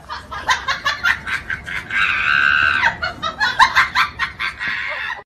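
A burst of high-pitched, shrieking laughter: rapid choppy cackles, with a long held squeal about two seconds in, then more quick cackles.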